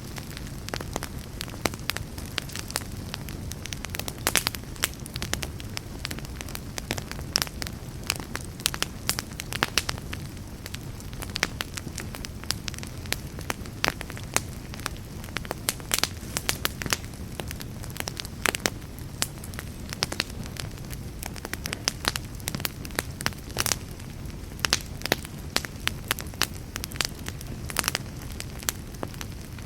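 Wood fire burning in a fireplace: irregular crackles and sharp pops, several a second, over a steady low rumble of the flames.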